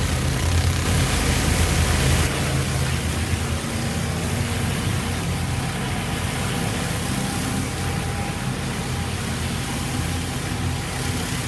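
Pressure washer engine running steadily under the hiss of high-pressure water spraying from a surface cleaner onto concrete; the hiss eases a little about two seconds in.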